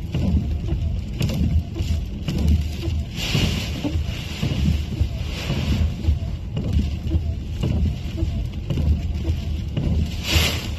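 Storm wind buffeting a car, with rain and sea spray hitting the windscreen as the wipers sweep, heard from inside the cabin. A steady low rumble, with a few louder hissing surges, the strongest near the end.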